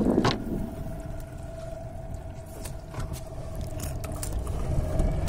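Boat's outboard motor running steadily, a low rumble with a steady hum. A few short knocks and thuds come over it as a yellowfin tuna is lowered into the open boat.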